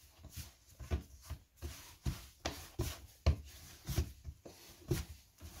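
Pizza dough being kneaded by hand on a floured worktop: a string of soft thumps and rubbing, roughly twice a second, as the dough is pressed and pushed against the counter.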